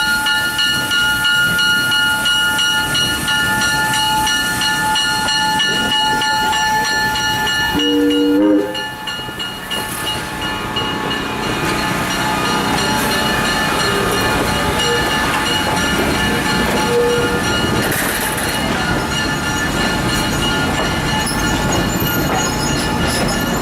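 Excursion train pulling into the station. A steady high-pitched squeal runs for the first eight seconds or so, a short low horn blast sounds about eight seconds in, and then the rumble and clatter of the passing cars follows.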